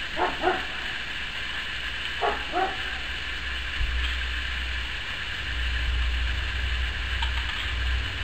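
A dog barking: two pairs of short barks, one right at the start and another about two seconds later.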